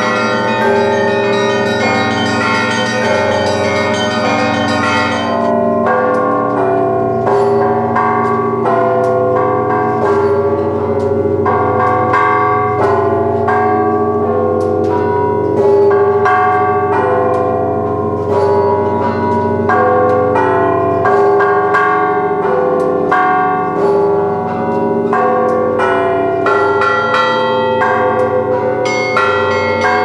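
Russian Orthodox cathedral bells rung by a bell ringer pulling clapper ropes: a full peal with quick, repeated strokes of the smaller bells over the lasting ring of the larger ones.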